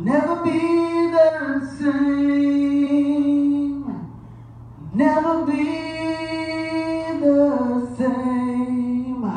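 A woman singing solo through a handheld microphone, drawing out long held notes without clear words. Two long phrases, with a short breath about four seconds in.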